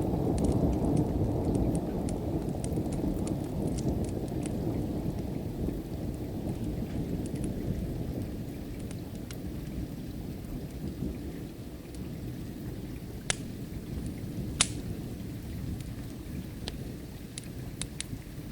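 A long low rumble of thunder, loudest at first and slowly dying away, over steady rain. Scattered sharp crackles and pops from a wood fire run through it, with two louder pops past the middle.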